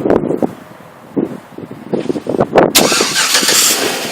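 A 2008 Chevrolet Avalanche's 5.3-litre V8 is started by remote start. After a few short, scattered sounds, the engine catches suddenly near the end and keeps running, its level slowly easing.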